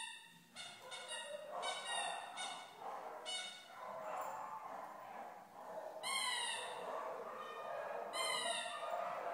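Small Chihuahua-type dog whining in high-pitched calls: several short ones in the first few seconds, then two longer, slightly gliding whines about six and eight seconds in.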